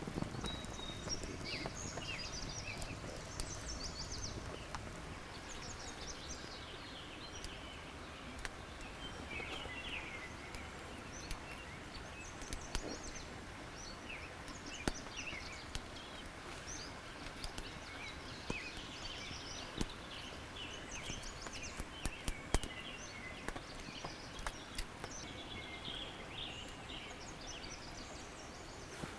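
Birds chirping and singing off and on over a faint, steady outdoor background, with now and then a small sharp click or rustle from hands binding feathers onto a wooden arrow shaft with thin cord.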